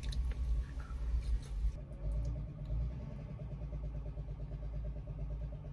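Car engine idling, a low steady hum heard from inside the cabin, with a few small clicks in the first two seconds.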